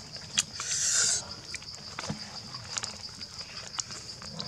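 Close-up eating sounds of roasted duck being torn and chewed by hand: wet clicks and lip smacks, with a louder noisy burst about a second in, over a steady high insect drone.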